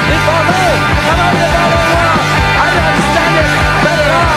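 Loud punk rock music from a full band.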